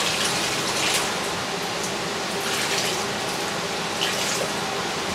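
Water pouring and splashing back into a plastic tub as handfuls of soaked granulated stone wool growing medium are squeezed out over it, in several separate pours about a second or so apart.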